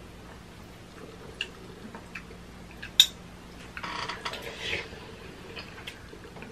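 Eating cup noodles: a few light clicks of metal chopsticks and spoons against the cups, one sharp click about three seconds in, then two short slurps of noodles and broth from a spoon about a second later.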